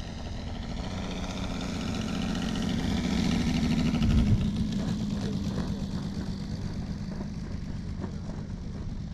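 Saito FG-60R3 three-cylinder four-stroke gas radial engine of a giant-scale RC P-47 Thunderbolt running as the model lands and rolls past, growing louder to a peak about four seconds in, then fading as it rolls away down the runway.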